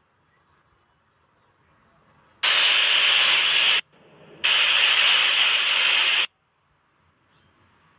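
Two bursts of loud, even hiss like static, each switching on and off abruptly, the second longer than the first, with a fainter hiss rising between them.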